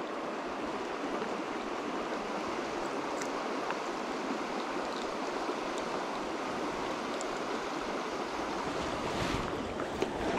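Shallow river flowing over a cobble and gravel bed: a steady, even rush of running water.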